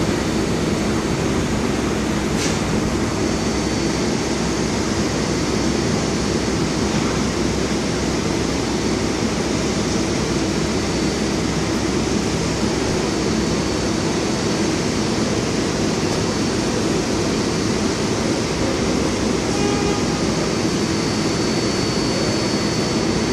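Stationary R142A subway train standing with its doors open, its air-conditioning and onboard equipment running: a steady hum with a thin, constant high whine.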